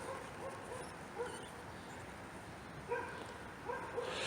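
Faint, short whimpering calls from an animal, repeated irregularly several times over a low steady background.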